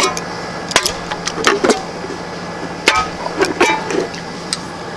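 The black DLC-coated blade of an automatic knife scraped and knocked against the metal bottom of a peanut can, in several short, separate metallic scrapes and clicks: a scratch test of the coating.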